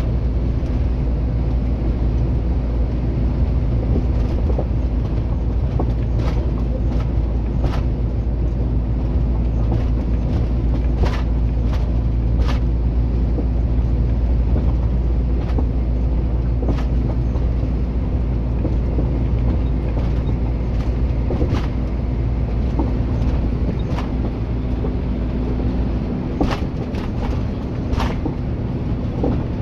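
Heavy truck's diesel engine and road noise heard from inside the cab while cruising: a continuous low rumble with a steady hum and a few brief sharp clicks or rattles. The deepest part of the rumble eases off near the end.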